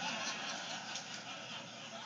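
Comedy-club audience laughing after a punchline, a dense wash of laughter that slowly fades.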